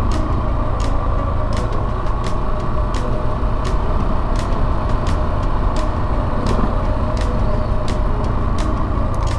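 Yamaha SEROW 250's air-cooled single-cylinder engine running steadily under way, with a heavy low rumble. Short sharp ticks come every half second or so at uneven spacing.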